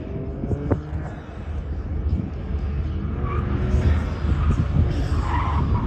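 Competition hatchback racing through a slalom cone course, its engine revving up and down through the turns, with a single sharp crack just under a second in. The tyres squeal in short bursts from about three seconds in, loudest near the end as the car slides through a tight turn.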